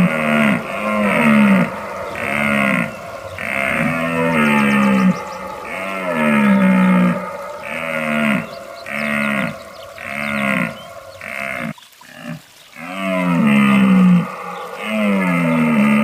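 Deer calling over and over, a run of short, low calls about once a second, each rising and then falling in pitch, with a short pause about twelve seconds in.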